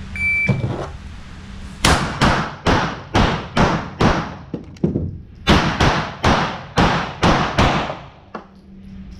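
A shot timer beeps once, then a pistol fires a rapid string of shots. After a short pause near the middle, typical of a reload, a second rapid string follows.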